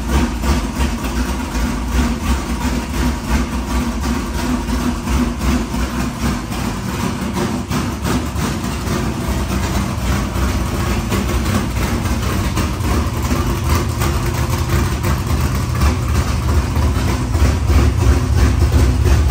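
Dirt-track modified race car's engine idling steadily through open headers, growing slightly louder near the end. It is being run to warm up the oil before draining it.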